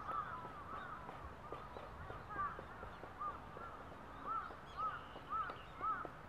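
Crows cawing over and over, several calls overlapping, ending in a run of four louder caws about half a second apart.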